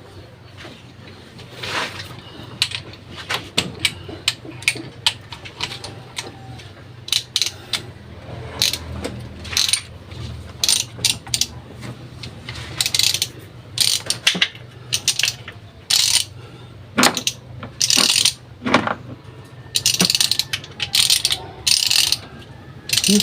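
Metal hand tools and parts clicking and rattling in short strokes: scattered at first, then coming closer together and longer in the second half, over a steady low hum.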